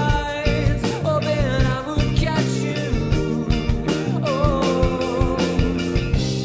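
Alternative rock band playing a song: a steady drum beat under electric guitars, with a sliding melody line on top.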